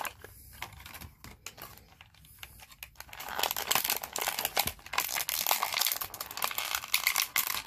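Clear plastic packaging of an action figure crinkling as it is opened by hand. A few scattered clicks and crackles come first, then steady crinkling from about three seconds in.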